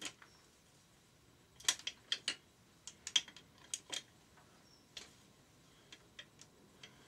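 Metal hand tools clinking and tapping against each other and the engine: a dozen or so sharp, irregular clicks, busiest in the first half.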